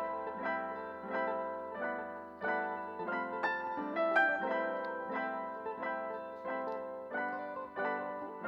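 Background music: a gentle piano melody with notes struck about twice a second.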